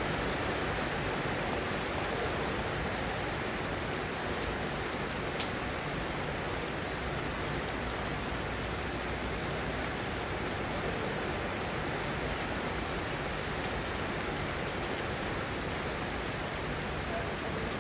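Steady rain falling, an even hiss of rainfall with no let-up.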